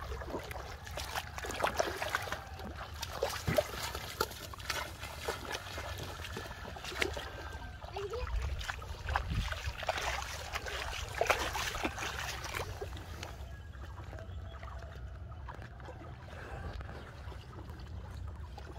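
Shallow river water splashing and sloshing as a person wades and feels through it by hand, irregular splashes that thin out and grow quieter after about thirteen seconds.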